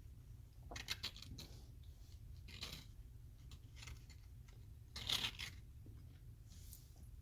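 Short, scattered scraping and rustling handling sounds, the loudest about five seconds in, over a steady low hum.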